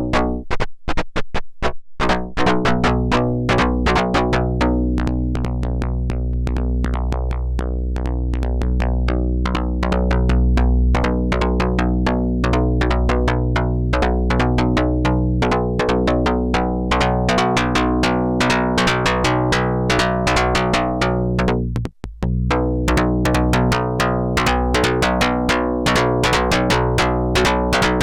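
Electronic drum-synthesizer jam from an Erica Synths Perkons HD-01: a fast, steady pattern of synthesized drum hits over sustained synth tones and a low bass drone. The music breaks off for a moment about 22 seconds in, then comes straight back.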